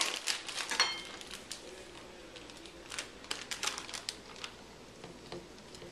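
Plastic zip-top bag crinkling as it is handled, with scattered light clicks and taps, busiest in the first second and sparser later.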